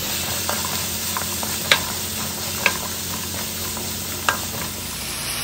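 Diced onion and carrot sizzling in oil in a nonstick wok while being stirred with a wooden spoon. A steady sizzle, broken by a few sharp clicks.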